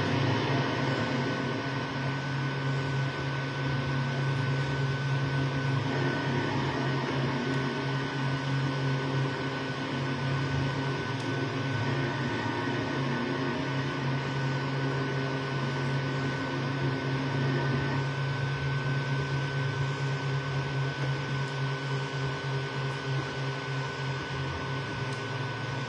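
Creality Ender 3 V2 3D printer printing: a steady motor hum and whir as the print head moves, with a thin high whine held throughout. The hum changes character every six seconds or so as the moves change.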